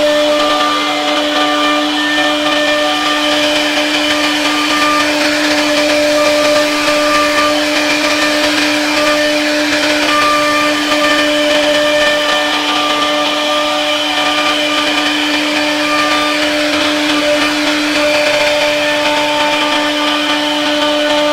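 CNC router spindle carving a wooden door panel: a steady, even motor whine with overtones, over the hiss of the bit cutting the wood.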